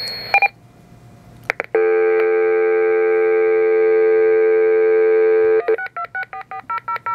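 Tempo DigAlert TM900 telephone test set (lineman's butt set) off-hook on a phone line: a short beep and a click, then a steady dial tone for about four seconds, broken off by a quick run of touch-tone (DTMF) dialing beeps, about five a second, as the number is keyed in.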